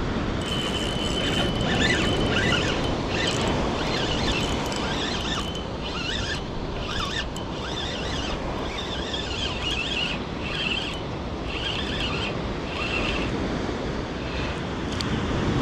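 Wind buffeting the microphone over open water, with a run of short, high-pitched chirping sounds repeating about once a second until near the end.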